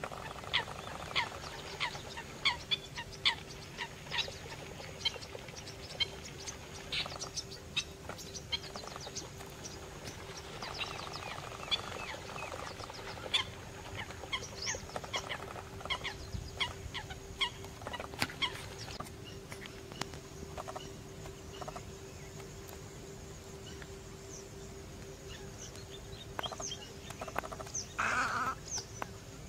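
Little ringed plovers calling: short whistles that fall in pitch, one or two a second at first, then more scattered, over a faint steady hum.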